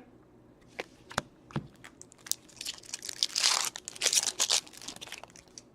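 Trading-card pack wrapper being torn open and crinkled, with scattered light clicks before two denser stretches of tearing and rustling about three and four seconds in.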